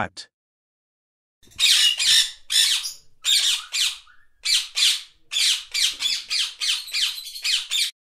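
A parrot squawking: a long run of harsh, rapid screeching calls in quick clusters of two or three, starting about a second and a half in.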